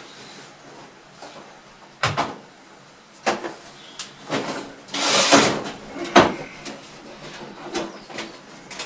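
Workshop rummaging among metal tools and parts: a string of separate knocks and clatters, with a louder rattling scrape about halfway through.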